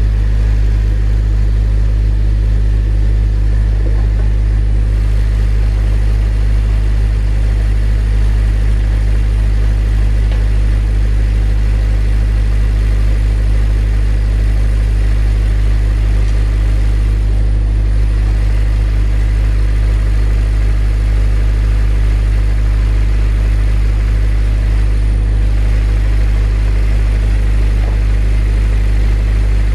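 Honda Civic Si's four-cylinder engine idling steadily just after a cold start, a constant low hum.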